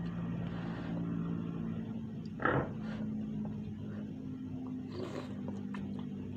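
A person slurping noodles off chopsticks: one short loud slurp about two and a half seconds in and a fainter one near five seconds, over a steady low hum.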